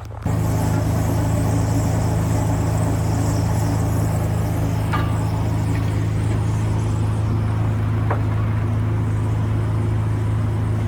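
Small gasoline engine running steadily with a constant low hum, with a couple of faint clicks about five and eight seconds in.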